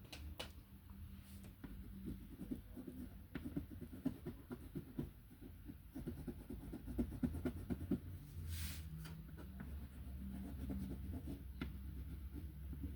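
A colouring tool rubbing back and forth on paper in quick, irregular shading strokes, with a faint steady low hum underneath.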